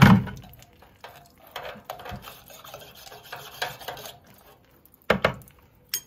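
A metal rod scraping and knocking inside the brass lower gauge-glass valve of a steam boiler as it is reamed out to clear the sediment clogging it. There is a sharp knock at the start, then irregular scraping, then two quick knocks about five seconds in.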